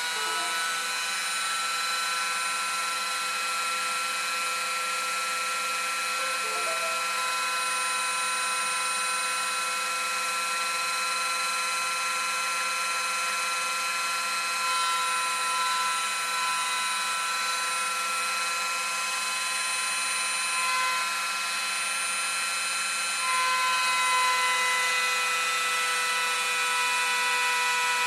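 DIY 3D-printed CNC machine milling a wooden board with a rotary-tool spindle: a steady high-pitched machine whine made of several tones over a cutting hiss, with some tones shifting pitch as the machine moves, and getting a little louder about 23 seconds in.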